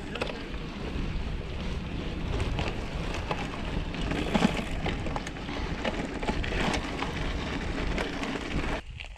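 Wind buffeting a GoPro's microphone while a mountain bike rolls over bumpy grass double track, a steady rumble and hiss with scattered rattles and knocks from the bike. The noise drops away sharply near the end.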